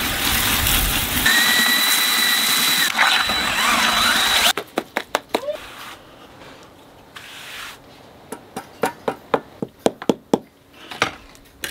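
A garden-hose spray nozzle runs water into a plastic bucket with a loud steady rush, joined by a steady high whine about a second in, and stops after about four and a half seconds. Then come quieter sharp taps and scrapes as a trowel spreads refractory cement on a concrete slab and a rubber mallet taps fire bricks into place.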